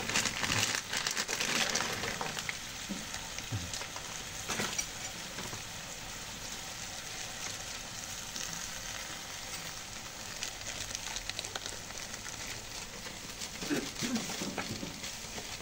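Sambal krecek, chilli paste with cow-skin crackers, sizzling steadily in a pan just after the krecek goes in. Spatula clicks and scrapes in the first few seconds.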